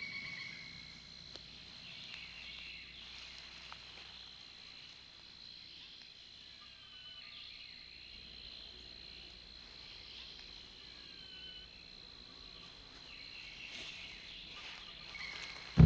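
Night-time woodland ambience: crickets trilling in a steady high tone, quietly, with a few faint short sliding calls now and then.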